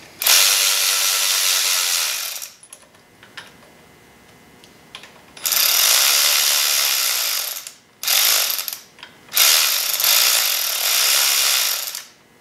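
Hand ratchet wrench clicking rapidly as handlebar bolts on a Harley-Davidson Sportster are backed out, in four runs of one to two and a half seconds with short pauses between.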